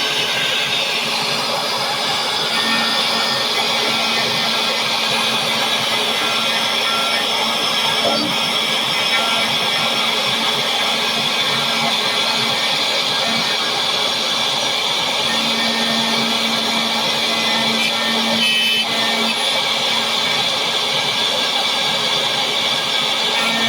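A vacuum running steadily, sucking up metal chips, while an Xhorse Dolphin XP-005 key-cutting machine's spinning cutter mills a key blank: an even, continuous whir with no pauses.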